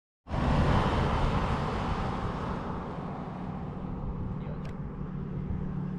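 A car passes on the highway close by. Its tyre and road noise is loudest at the start and fades as it drives away, leaving a steady low rumble. A single short click comes near the end.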